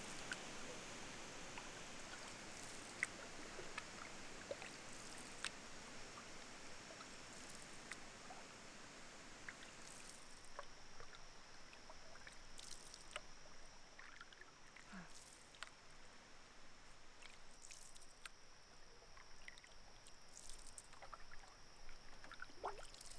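Canoe paddling on calm water: soft paddle strokes and water drips over a faint hiss, with scattered small clicks. A faint steady high-pitched tone joins about ten seconds in.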